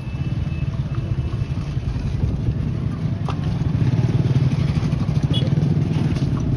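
A motor vehicle's engine running close by, a low rumble that grows louder about halfway through.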